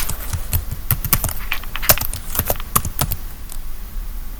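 Typing on a keyboard: a quick, irregular run of key clicks as a word is typed out.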